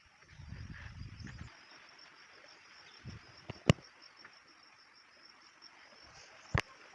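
Insects trilling steadily in a high, even chorus. A low rumble lasts about a second near the start, and there are two sharp clicks, one about halfway through and a louder one near the end.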